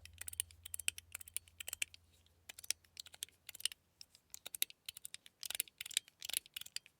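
Metal Toys Rain mechanical fidget slider, modded with a metal track, being slid back and forth: a run of sharp, light metal clicks, several a second, with a brief pause about two seconds in.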